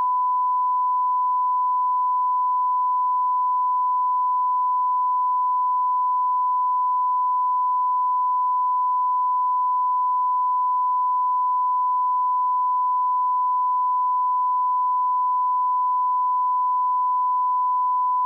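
Steady 1 kHz line-up reference tone, a single unbroken pure tone at a constant level, played over colour bars at the head of a video master so that audio levels can be set.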